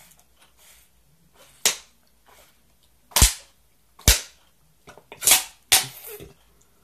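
Thin plastic drink bottle crackling and popping as it is tipped up and drunk from: about five sharp, loud pops roughly a second apart, with smaller crackles between them.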